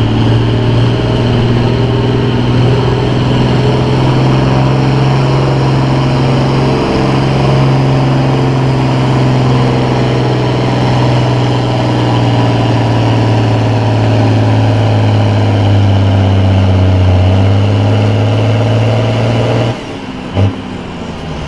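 Farm tractor engine running hard under full load, pulling a weight-transfer sled down a tractor-pull track. Its pitch sags near the end as the load builds, and the sound drops off sharply with about two seconds left as the run ends.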